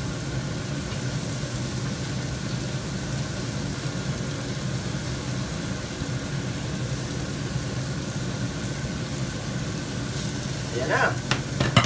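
Chopped pork sisig sizzling on a hot cast-iron sizzling plate in melted butter, an even hiss over a steady low hum. A few sharp scrapes of the spatula against the glass bowl and plate come near the end.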